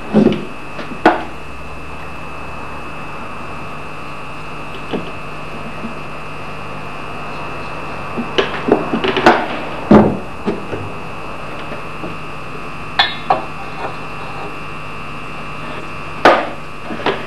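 Scattered sharp knocks and clicks of hand tools and small objects being handled against a steel axe-filing jig and bench vise as marking ink is applied to the axe, with a cluster of knocks in the middle and a few single ones, over a steady hum.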